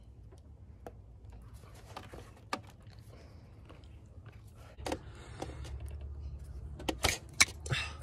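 Scattered light clicks and rattles of rubber hoses and metal hose clamps being worked loose by hand in an engine bay, with a few sharper clicks near the end, over a faint low hum.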